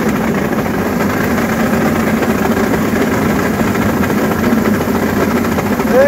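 Kubota combine harvester running steadily while its unloading auger discharges threshed paddy into a trailer: an even, loud engine drone.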